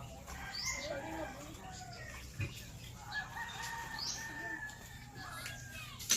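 Rooster crowing, with short calls in the first second and a long drawn-out crow from about three seconds in; a single soft knock sounds about two and a half seconds in.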